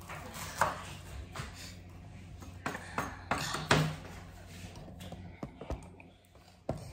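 Irregular knocks and clinks of kitchen utensils on a counter and chopping board, a few at a time, the loudest a little under four seconds in, over a low steady hum.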